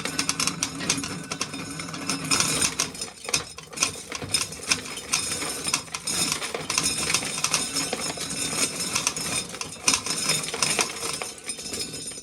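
Hand-cranked corn sheller being turned, stripping kernels off dried cobs with a steady, rapid clatter of kernels and rattling metal.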